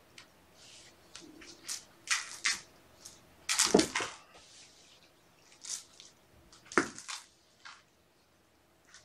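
Kittens playing with toys on a carpet, with a person waving toys: irregular rustling and scuffling, loudest about three and a half seconds in, with another sharp rustle near seven seconds.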